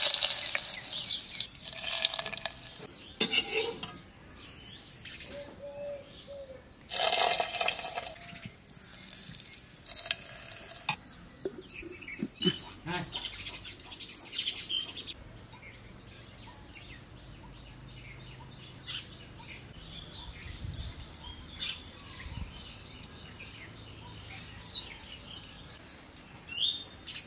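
Oil poured from a steel ladle into small clay pots, in four short splashing pours during the first ten seconds. After that come quieter handling sounds with a few light taps, and birds chirp faintly in the background.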